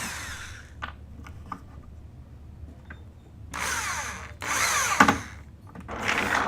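Power drill running in short bursts as it works the screws holding the tool box's casters, its pitch winding up and down. A few light clicks come first, then two runs starting about three and a half seconds in, with a sharp knock near the end of the second.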